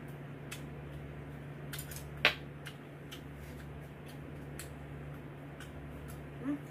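Eating utensils clinking against dishes during a meal: scattered light taps and one sharp clink about two seconds in, over a steady low hum.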